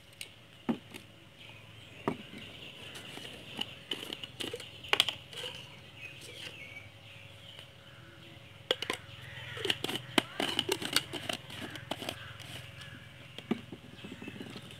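Scattered light clicks and taps of spice jars and a spoon against a stainless steel bowl as powder is spooned onto raw chicken, over an outdoor background of birds calling.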